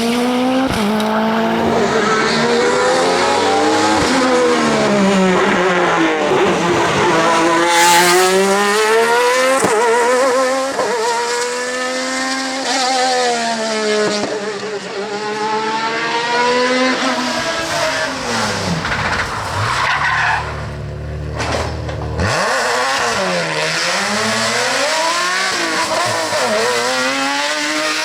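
Race car engine on a hill climb, revving hard with its pitch repeatedly climbing and dropping back as it shifts through the gears and lifts for corners.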